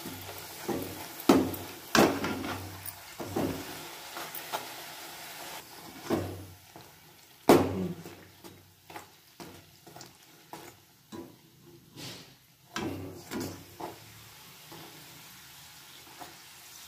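Puri deep-frying in hot oil in a kadai, the oil sizzling steadily, while a metal spatula repeatedly taps and scrapes against the pan as the puri is pressed down to make it puff up.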